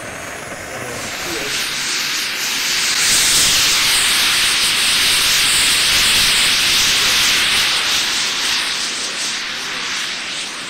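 Turbine engine of a radio-controlled model jet passing by in flight: a loud hiss that swells over about three seconds, holds, then fades near the end, with a faint wavering whine on top.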